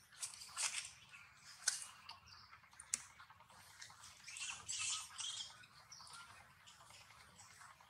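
Soft rustling and wet clicking from a newborn long-tailed macaque suckling at its mother's chest, in scattered short bursts with a couple of sharp clicks about two and three seconds in.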